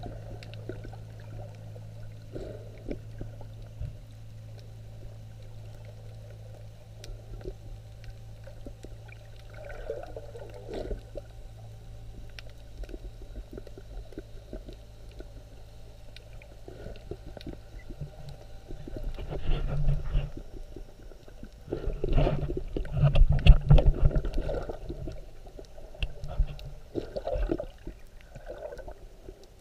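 Underwater sound through a snorkeler's camera: a steady low hum with faint scattered clicks, then, about two-thirds of the way in, loud bursts of rumbling, sloshing water noise from movement in the water close to the camera.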